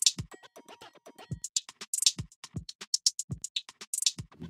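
Electronic outro music: a drum-machine beat of deep, downward-sweeping kick drums under fast, crisp hi-hat ticks.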